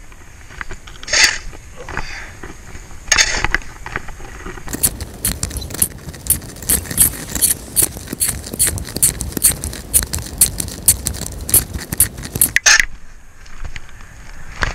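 Snow shovel blade scraping along the pavement as it pushes snow: two short scrapes, then a long push about five seconds in, made of rapid sharp clicks, that stops suddenly near the end.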